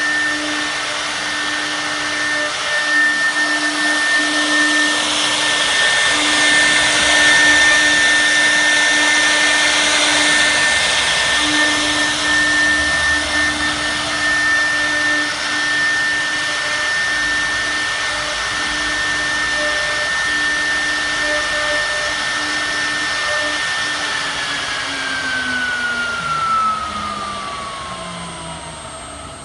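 6 kW HSD spindle of a CNC router running at speed: a steady high whine with a lower hum over a broad rushing hiss. About five seconds before the end the whine glides steadily down as the spindle spins down.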